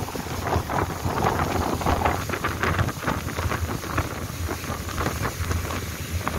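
Long-tail boat engine droning steadily while the boat is underway, with wind buffeting the microphone.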